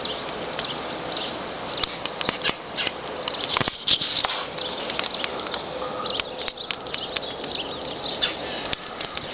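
Footsteps crunching through deep snow: irregular crackling crunches over a steady hiss.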